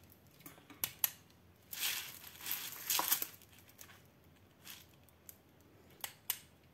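Diamond-painting canvas and its clear plastic protective film crinkling as the canvas is handled and repositioned by hand, in several short rustles in the first half with a few sharp clicks.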